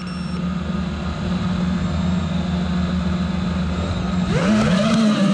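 FPV racing quadcopter's brushless motors spinning steadily at idle while it sits armed on the ground. About four seconds in the throttle comes up and the motor whine rises in pitch as it begins to take off.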